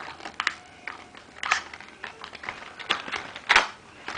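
Irregular sharp clicks and short crackles of a wire tie being cut off a Beyblade fusion wheel and the part being handled in its packaging. The loudest snap comes about three and a half seconds in.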